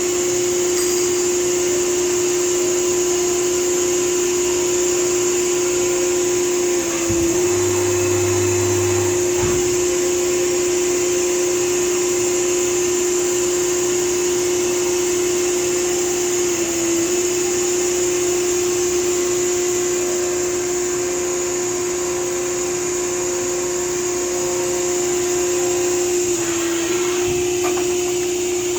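Modig 7200 Profileline 5-axis CNC machining center running, a steady high-pitched mechanical whine with hiss. A brief low hum comes in about seven seconds in, with a couple of light knocks around it.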